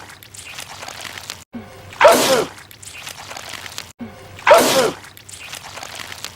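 A man's loud sneeze, the same clip looped so that it comes twice about two and a half seconds apart. Each sneeze has a short intake of breath before it, and the sound cuts off abruptly at each loop join.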